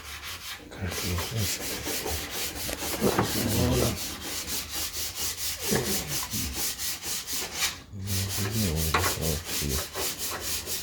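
Sanding: rubbing strokes at a fast, even rhythm of about four or five a second, with a few muffled low sounds about three seconds in and again near the end.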